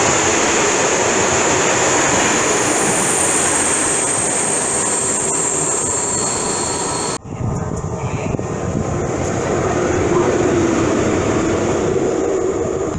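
A train of ČD passenger coaches rolling past close by: steady wheel and rail noise with a high, thin wheel squeal above it. About seven seconds in, the sound cuts off suddenly to a quieter, lower rumble of rail traffic.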